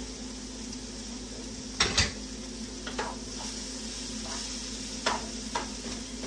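Vegetable stir fry sizzling in a frying pan as it is stirred, a utensil knocking twice against the pan about two seconds in and clicking lightly a few more times later, over a steady low hum.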